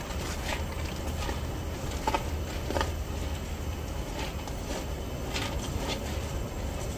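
A spatula scraping and pushing soaked glutinous rice across aluminium foil in a steamer pot: scattered soft scrapes and foil crinkles, over a steady low hum.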